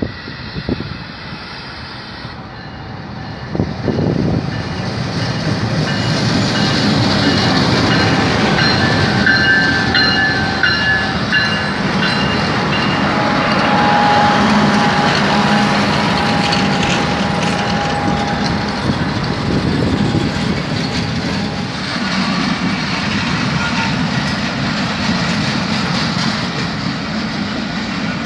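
Diesel-electric passenger train passing close by: a GE GEU-20 locomotive with its GE 7FDL-12 prime mover approaches and goes past, growing loud about four seconds in, followed by a long run of passenger coaches rolling past with a clickety-clack of wheels over the rail joints.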